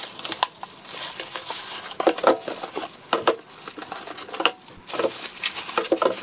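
Cardboard box being opened and its contents pulled out: cardboard flaps scraping and rustling, and plastic bags crinkling, with several louder rustles and knocks in the second half.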